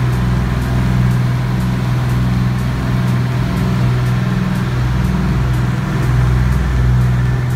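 A large sport-fishing yacht's engines running at cruising speed: a steady low drone that throbs slowly, over the rushing of its churning wake.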